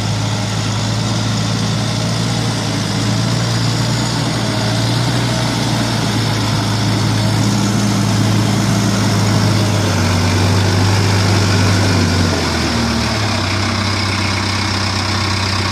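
Tractor engine running steadily with a low hum. Near the end the engine note drops and it settles a little quieter, as the revs come down.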